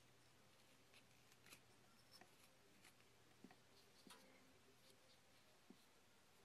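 Very faint, irregular scratches and small clicks of a hobby knife blade scraping and shaving the surface of a stone-powder clay figure.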